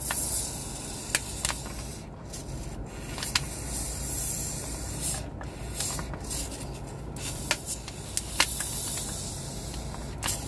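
Soapy water squeezed from a plastic squeeze bottle and worked over a crew oxygen cylinder's valve and regulator fittings for a soap-bubble leak check: a steady hiss with a few light clicks.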